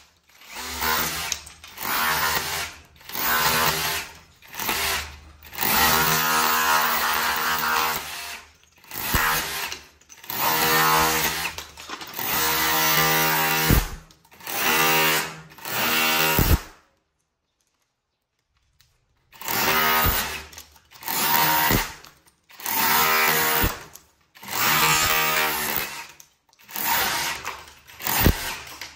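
Hukan RH2900BL brushless cordless rotary hammer in chisel mode, hammering a flat chisel bit into a plastered brick wall. It runs in repeated short bursts of about a second with brief pauses between, and drops out for about two and a half seconds a little past the middle.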